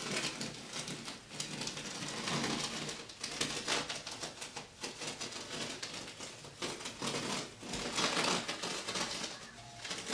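Blue painter's tape being peeled off a textured, freshly painted wall while the paint is still wet: a continuous, uneven crackling that swells and eases as the tape comes away.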